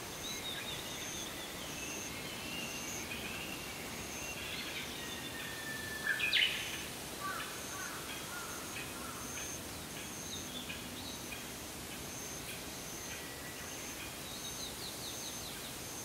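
Wild birds singing and calling over a steady outdoor background, loudest a sharp upward-sweeping call about six seconds in and a quick trill near the end. Under them, an insect's high note pulses about twice a second throughout.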